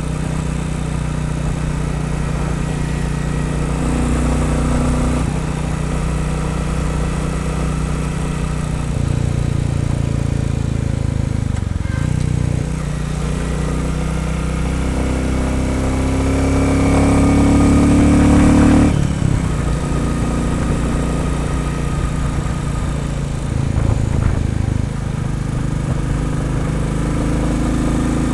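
Royal Enfield Bullet 350's single-cylinder four-stroke engine running while the bike is ridden, with the air intake covers removed. Revs climb for a few seconds past the middle and then drop sharply. The owner hears a wooden rattle or buzz in time with the cylinder firing under load at certain revs. Forum comments take this as normal for a Bullet and expect it to soften as the engine runs in.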